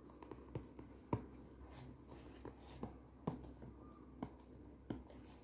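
Fingers handling a small cardboard smartwatch box and picking at its seal: faint, scattered taps and scratches, about eight in all.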